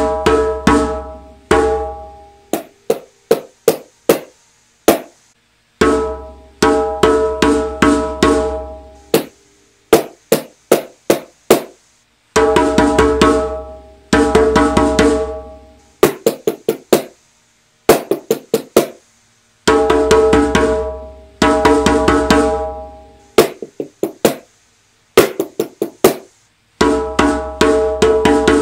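Call-and-response rhythms: short phrases on a drum whose strokes ring with several pitched tones and a deep low thud. Each phrase is answered by the same rhythm as sharp, dry taps of a kitchen utensil on an upturned plastic bowl.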